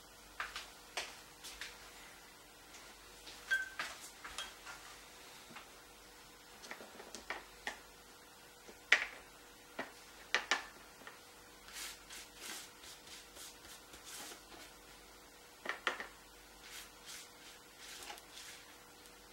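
Scattered light clicks and taps of watercolour brushes and painting tools being handled, with soft brush swishes on the wet paper in the second half as a green wash goes down. A faint steady hum runs underneath.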